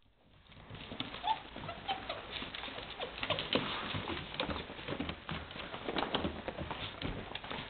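Labrador puppies' paws and claws pattering and scrabbling on a wooden floor, with a couple of short high puppy whimpers about a second in.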